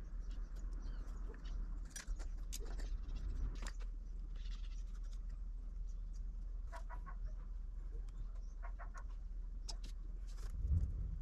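Faint scattered clicks and light taps as a knife, a small brush and a small cup are handled on a workbench, over a steady low hum.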